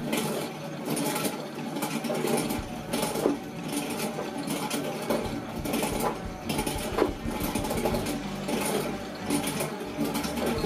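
Barnes No. 5 velocipede lathe, foot-pedalled, running steadily while its tool bit cuts a spinning brass workpiece: a rhythmic mechanical clatter from the treadle-driven works.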